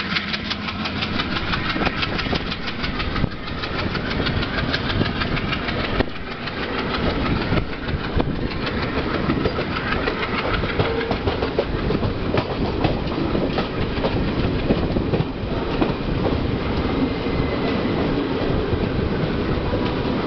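Indian Railways passenger coaches rushing past close alongside on the next track, heard from aboard a moving train: a steady roar of wheels and air with a rapid clatter of wheels over rail joints.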